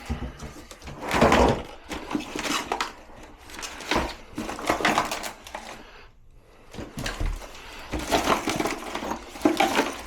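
Irregular clattering and rustling of small toilet-repair parts being handled and rummaged through, with scattered knocks.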